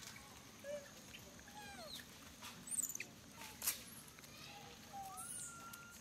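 Faint scattered squeaks and chirps from animals, short calls that slide up or down in pitch, with two sharp clicks about three and three and a half seconds in.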